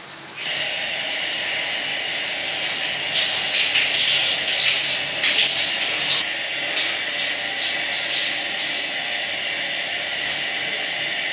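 Overhead rain shower head turned on about half a second in, then running: a steady hiss of water spraying down onto a person and the glass screen, swelling and dipping unevenly as he moves under the stream.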